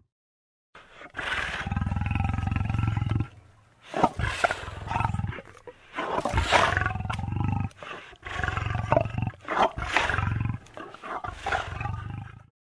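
Lion roaring: one long low call starting about a second in, then a series of shorter roars with brief pauses between them, cutting off suddenly near the end.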